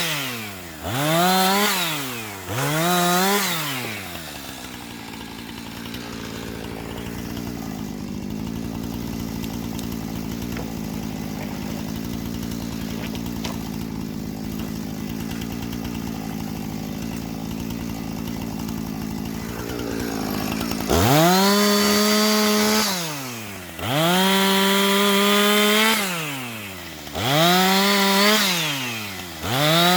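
Two-stroke chainsaw cutting sawmill slabs into short pieces. It is revved to full throttle for two short cuts, each rising, held, then falling back. It then idles steadily for about seventeen seconds before a quick run of four more full-throttle cuts near the end.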